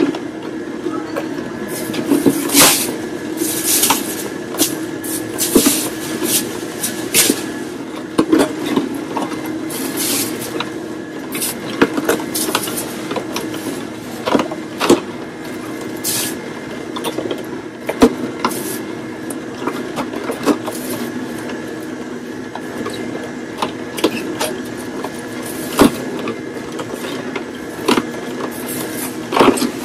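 Slow (masticating) juicer running with a steady motor hum, with irregular sharp cracks and crunches as pieces of carrot, green apple and cucumber are crushed by the auger.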